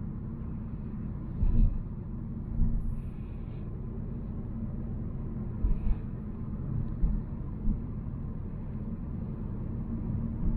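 Volvo C70 driving: a steady low rumble of engine and road noise, broken by a few short thumps, about four in all.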